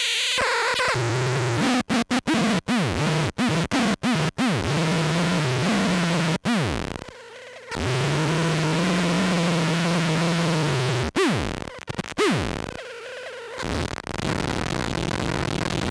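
Noise from a feedback-looper and sub-octave synth-fuzz pedal chain (Lost Soul into Sketchy Sounds Krackatone and Gorantula): a sputtering, fuzzed drone. In the first few seconds it is chopped by a quick string of short cut-outs, several of them followed by a swooping drop in pitch. It then settles into a steady low buzzing tone for about three seconds.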